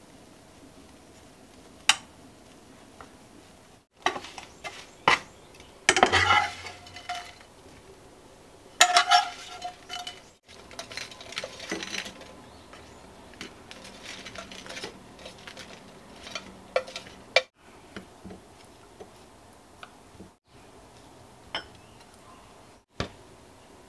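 Wooden chopsticks tapping and clinking against a tray and a porcelain platter as mini pancakes are moved across, with scattered sharp clinks of dishes. The loudest clatter comes about six and nine seconds in.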